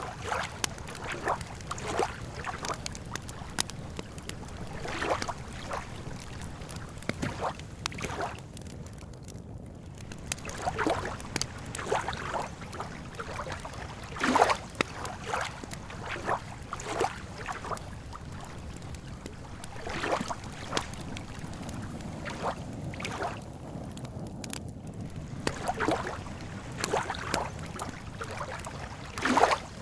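Campfire crackling, with many sharp pops, over a steady low background, while small lake waves lap at the shore every few seconds; the loudest lap comes about halfway through.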